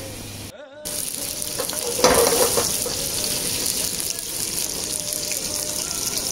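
Coarsely chopped red onions frying in oil in a stainless steel pan, with a steady sizzle. The sizzle grows louder about two seconds in.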